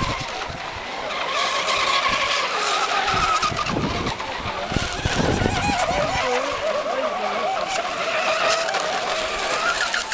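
Radio-controlled racing hydroplanes running flat out, a high whine that wavers in pitch as they corner, over the hiss of their spray on the water. A deeper rumble joins in for a few seconds near the middle.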